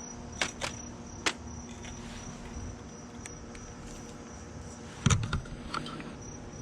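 Crickets chirping steadily, about four chirps a second, under a low hum. There are a few sharp clicks in the first second and a louder knock about five seconds in.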